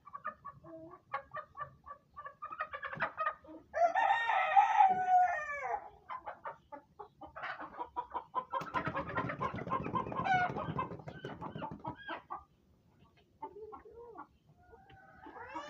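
Desi chickens clucking in short, repeated notes, with a rooster crowing once, loud and long, about four seconds in. A denser, noisier spell of calling follows from about nine to twelve seconds, then a few softer calls.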